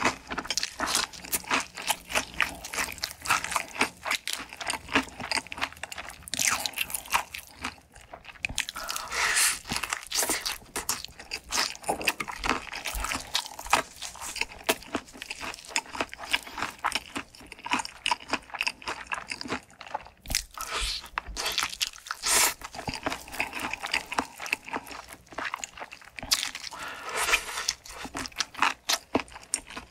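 Close-miked bites and chewing of crispy fried chicken, the coating crackling and crunching in dense, irregular bursts with a few short pauses.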